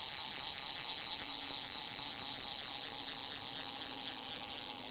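Steady hiss of flowing river water, with a faint, quick, even ticking running under it; it cuts off abruptly at the end.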